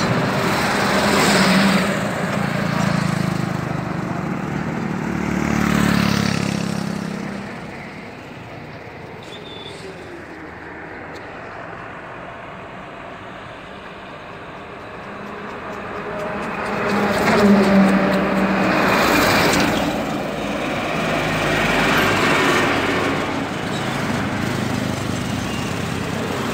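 Large road vehicles passing close by on a highway: engine hum and tyre noise swell as a box truck goes past over the first several seconds, settle to quieter steady road noise, then swell again as another vehicle passes about 17 seconds in.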